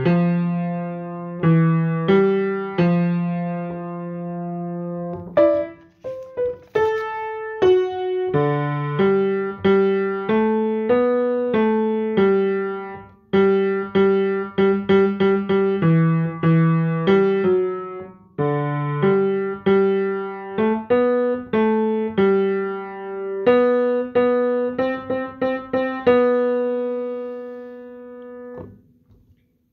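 Piano playing a slow run of chords and single notes, each struck and left to ring. The playing stops near the end on a held chord that dies away.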